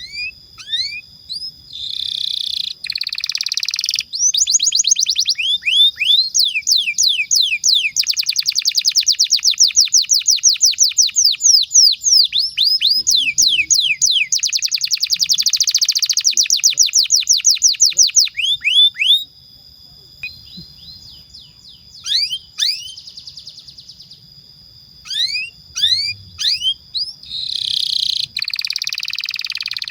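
Domestic canary singing long rolling trills of rapid, evenly repeated falling notes. About two-thirds of the way through the song thins to scattered notes, then the dense trills resume near the end.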